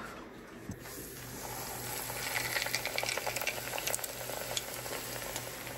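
A flour-dredged crow breast frying in hot grease in a skillet: a sizzling hiss peppered with small crackles and pops. The sizzle builds about a second in, is loudest in the middle, and eases slightly near the end.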